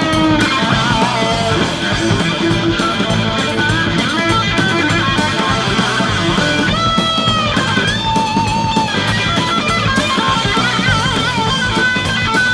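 Heavy metal band playing an instrumental section: lead electric guitar with bends and vibrato over bass and a drum kit.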